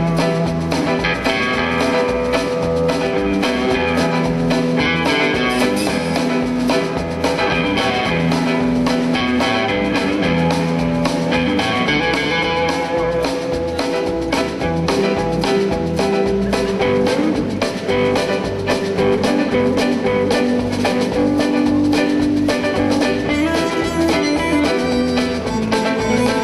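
Background music: a guitar-led instrumental with drums and a steady beat.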